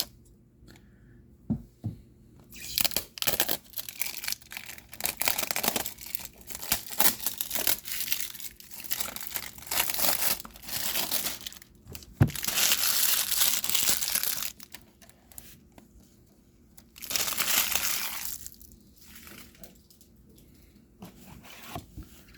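Wrapping being torn and crinkled off a trading-card display box, in several stretches of rustling, the longest and loudest just past halfway, with a shorter one a little later.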